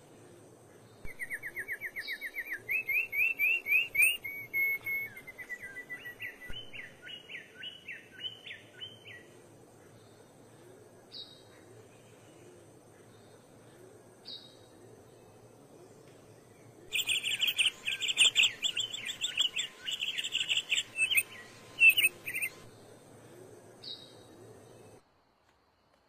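Songbird singing: a rapid trilled song that starts about a second in and runs for several seconds, a few short single calls, then another burst of fast, louder song a little past halfway. The sound cuts off abruptly near the end.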